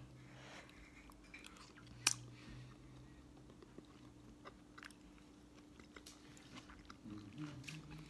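A person chewing a mouthful of soft cooked vegetables from a metal spoon, with small wet mouth clicks and one sharp click about two seconds in, over a faint steady hum.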